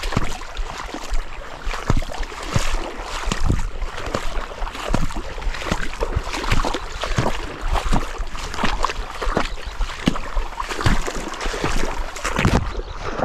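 Irregular splashing and sloshing of water, with a constant low rumble underneath.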